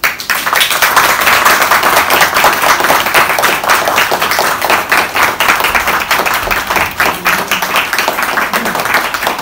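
Theatre audience applauding: many people clapping together in a dense, steady patter.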